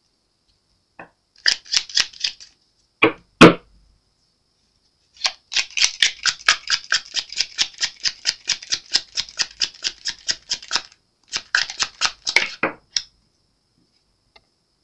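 A deck of tarot cards being shuffled by hand: a short flurry of card snaps, the deck knocked twice on the table about three seconds in, then a long run of quick, even card slaps at about six a second and a shorter run after a brief pause.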